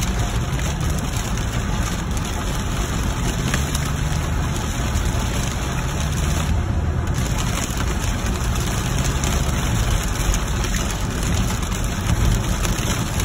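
Heavy rain on a car's windshield and roof, heard from inside the moving car, over a steady low rumble of tyres on the wet road.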